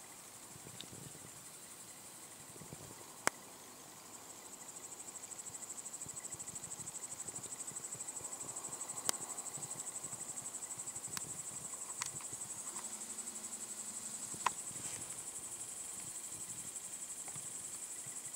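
Insects chirring: a steady, high-pitched, finely pulsing trill that grows louder about five seconds in. A few sharp clicks or snaps stand out above it.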